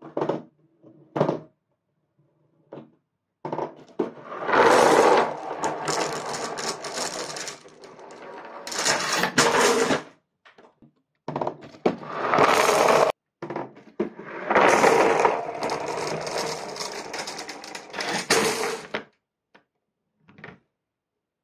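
Some 45 glass marbles pouring together down cardboard chutes, a dense clattering rattle that runs for several seconds twice. Short separate clicks of single marbles come before and after.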